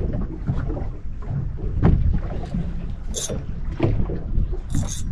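Steady wind rumble on the microphone aboard a boat, with a few dull knocks. Two short bursts of high buzzing come from a fishing reel's drag giving line to a hooked fish, about three seconds in and again near the end.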